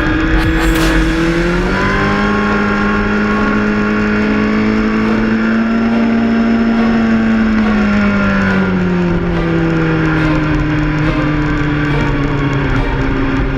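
A vehicle engine running hard at high revs. Its pitch climbs about two seconds in, holds, then eases down around eight to nine seconds in and settles lower.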